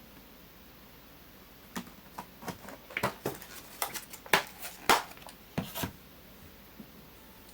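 Handling noises in a small room: a quick, uneven run of clicks and light knocks lasting about four seconds, loudest near the middle.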